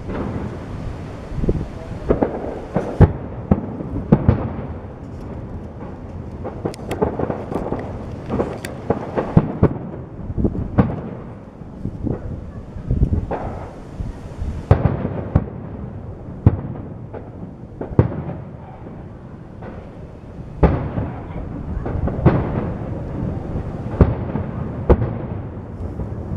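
Aerial fireworks shells bursting in quick, irregular succession: sharp bangs, several a second at times, over a continuous rolling rumble of echoing reports.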